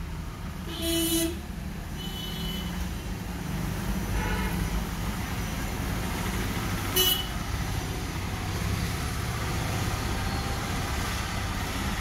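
Steady rumble of road traffic with a short horn toot about a second in and a sharp click about halfway through.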